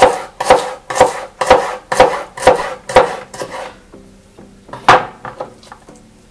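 Kitchen knife slicing a red onion lengthwise on a wooden cutting board, cutting through onto the board about twice a second for three and a half seconds. The cutting stops and gives way to quieter handling sounds, with a single louder knock about five seconds in.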